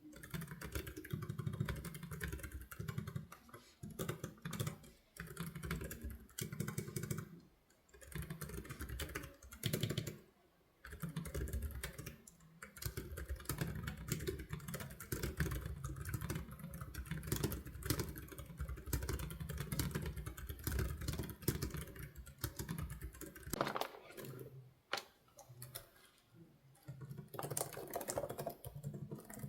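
Typing on a Freeflow Archon UX Flat Max, a slim full-metal low-profile keyboard: rapid runs of keystroke clicks with a few short pauses.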